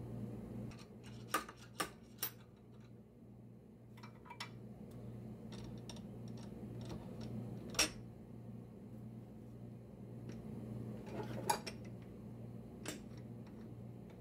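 Sharp metal clinks and knocks from a wood blank being taken off the lathe's drive centre and fitted into a four-jaw metal chuck: three quick clinks about a second in, then single ones further on. A steady low hum runs underneath.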